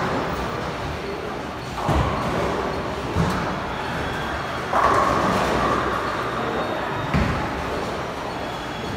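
Bowling alley din: a steady rumble of balls rolling along the lanes, broken by about four sudden thuds and clatters of balls and pins across the hall.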